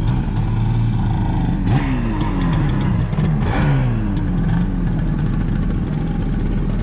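A motor vehicle engine running, its pitch falling twice as it revs down, over a steady low hum.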